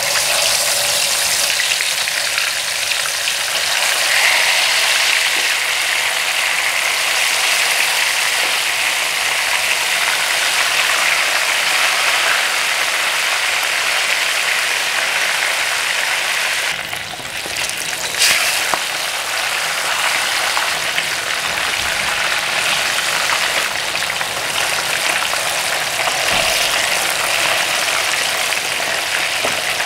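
Tilapia pieces deep-frying in hot oil in a wok: a steady, even sizzle. It briefly dips a little past the middle, then comes a single knock.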